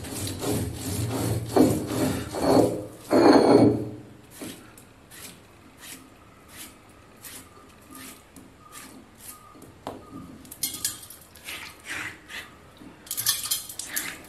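Stone roller grinding a coarse coconut mixture on a flat grinding stone (ammikkallu), with rasping back-and-forth strokes for about the first four seconds. After that come quieter light knocks and scrapes of stone and fingers as the mixture is gathered and the roller wiped down by hand, with louder scraping near the end.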